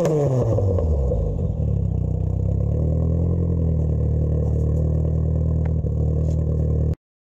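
Nissan S15 Silvia's SR20DET turbocharged four-cylinder engine, heard at the exhaust, with its revs falling away from a blip and settling into a steady idle within about two seconds. The sound cuts off suddenly near the end.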